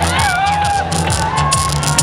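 Dance music played loud with a steady, repeating bass beat, with a crowd cheering and whooping over it.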